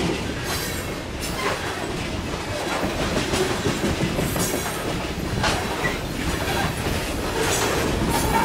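Coal train cars rolling past close by, the steel wheels clacking over the rail joints at irregular intervals over a steady rumble. Near the end it grows louder as a diesel locomotive in the consist comes alongside.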